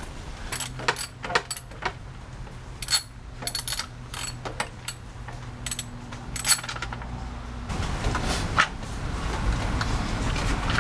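Ratchet wrench clicking in short runs with metal clinks as it backs out a chain-guard bolt on a motorcycle. About eight seconds in, a steady background noise rises under a few more clicks.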